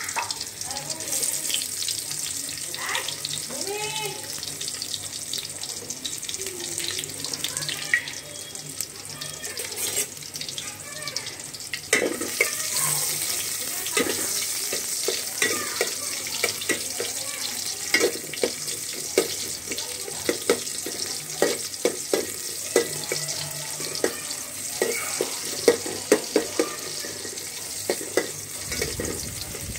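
Sliced onions sizzling in hot oil in a metal pot, with a steady hiss. They are stirred with a spatula that scrapes and taps against the pot, the taps coming thick and fast from about halfway through.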